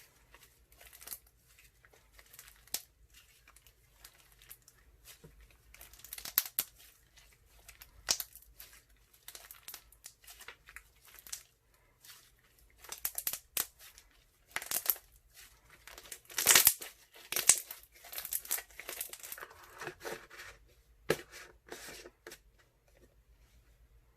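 Crunchy slime made with Doctor's Crunch clear glue being kneaded and squeezed by hand, giving irregular crackling and popping as trapped air bubbles burst. The loudest pops come about two-thirds of the way through.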